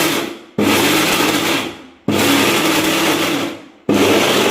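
Kitchen mixer grinder (mixie) grinding boneless chicken with potato, onion and bread crumbs into a paste, run in short pulses. Each pulse starts suddenly, runs about a second and a half and winds down. The first pulse is already dying away at the start, then three more follow.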